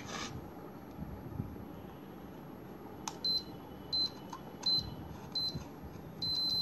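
Digital satellite finder meter's buzzer: a click, then four short high beeps about 0.7 s apart, turning into one continuous tone near the end. The buzzer grows more intense with signal strength, and here it reports a strong signal, near 88% on the display.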